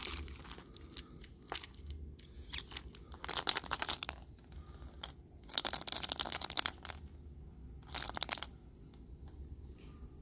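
Plastic candy wrappers crinkling and rustling as hands sort through a pile of wrapped sweets and plastic surprise eggs, in several short bursts with quieter pauses between, the longest around the middle.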